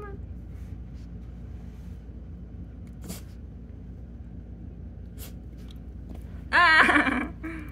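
Orange rubber dog toy squeaked by a hand pressing it: one loud, wavering squeak a little under a second long about two-thirds of the way in, then a short weaker squeak. A faint brief squeak comes right at the start.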